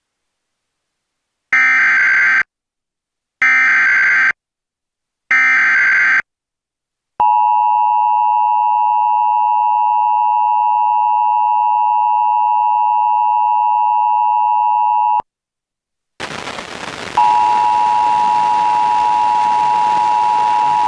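Emergency Alert System tones: three one-second bursts of SAME digital header data about two seconds apart, then the two-tone attention signal held steady for about eight seconds before it cuts off sharply. After a second of silence a steady hiss comes in, and the two-tone attention signal starts again over it. Together they open a relayed severe thunderstorm warning.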